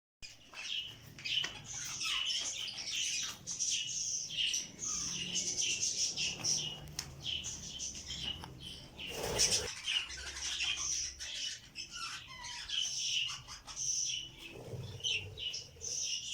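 A flock of small Australian parrots chirping and chattering without pause, many short high calls overlapping. About nine seconds in there is a brief burst of wing-flapping.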